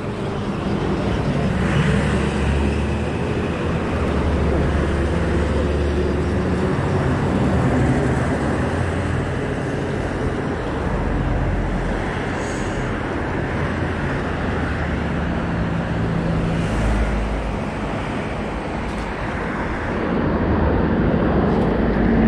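Road traffic passing close by: a steady rumble of vehicle engines and tyres that swells and eases as vehicles go past.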